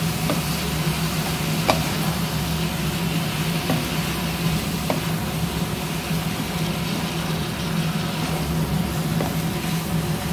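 Chicken, tomato and bell pepper sizzling as they fry in a pan, stirred with a wooden spoon that knocks lightly against the pan a few times. A steady low hum runs underneath.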